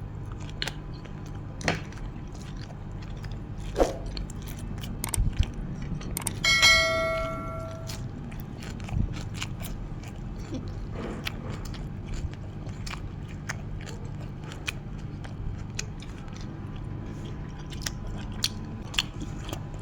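A person chewing and biting food close to the microphone, with scattered small clicks over a steady low hum. About six and a half seconds in, a brief metallic ring sounds and fades over about a second and a half.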